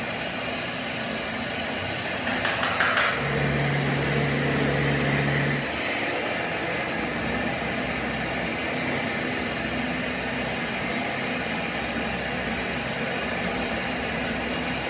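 Workshop machinery running steadily. About three seconds in, a louder noisy patch gives way to a low hum that lasts a couple of seconds before it drops back to the steady running noise.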